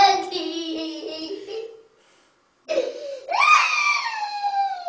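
Toddler crying: a wail that trails off, a brief silence, then a second long wail that rises and slowly falls.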